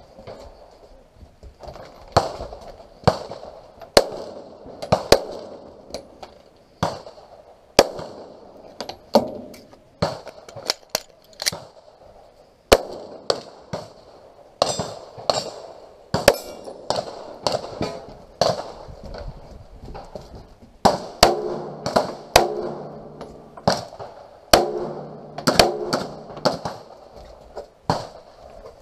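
Pistol shots fired in rapid strings with short pauses between, heard close up from the shooter's position. Some shots ring out briefly after each crack.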